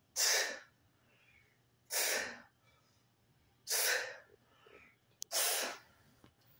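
A man breathing hard through his mouth in time with resistance-band side lateral raises: four short, sharp breaths about two seconds apart.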